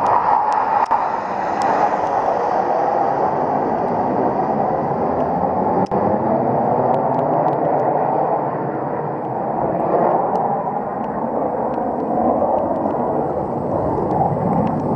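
Several BAE Hawk T1 jets of the Red Arrows flying a formation display overhead: a continuous jet rush that eases a little around the middle and then builds again.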